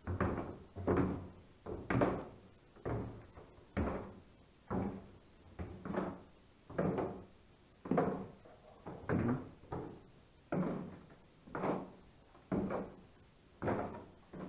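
Footsteps climbing stairs, a steady tread of heavy thuds about one a second, each with a short echo.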